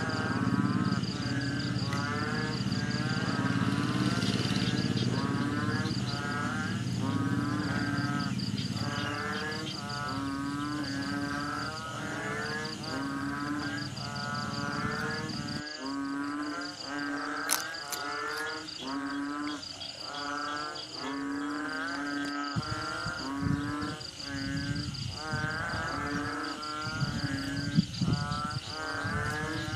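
Background music: a looping melody of sliding, pitched phrases that repeat about once a second over a steady pulse.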